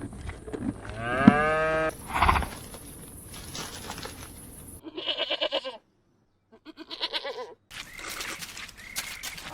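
Goats bleating in a series of separate calls: a long bleat about a second in, then shorter, wavering bleats later on, each one cut off abruptly where one clip is spliced to the next.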